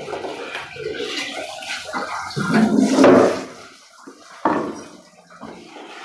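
Water spraying from a handheld bidet sprayer, rinsing a dirty plastic toilet cistern and its fittings, in uneven spurts that are loudest about three seconds in.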